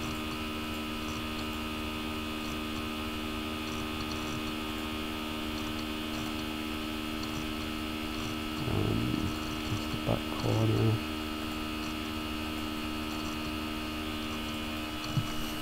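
Steady electrical mains hum on the recording, made of several steady tones. Two brief low voice sounds come about nine and about ten and a half seconds in.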